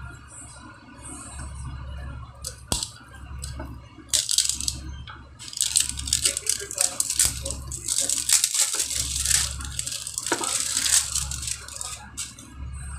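Clear plastic wrapping crinkling and tearing as it is peeled off a small tin can, a dense crackling run from about four seconds in until about eleven seconds in. A couple of sharp clicks come shortly before it.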